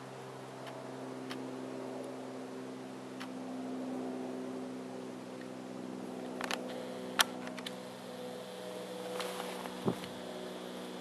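A steady mechanical hum made of several held tones, shifting slightly in pitch in the second half, with a few sharp clicks.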